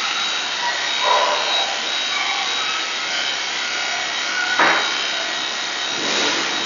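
Electric grooming clippers running with a steady high whine as they shave a rabbit's belly fur, preparing the abdomen for spay surgery, with a few brief louder rasps as the blade bites into the fur.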